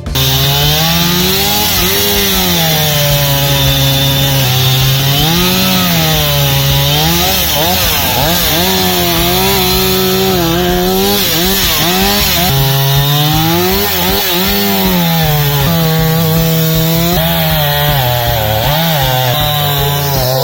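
Chainsaw engine running, revved up and down over and over so that its pitch keeps rising and falling.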